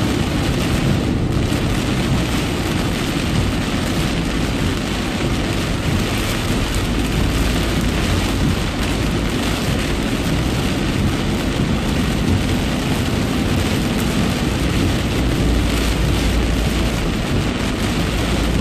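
Heavy rain drumming steadily on a moving car's windshield and body, heard from inside the car, over a constant low rumble.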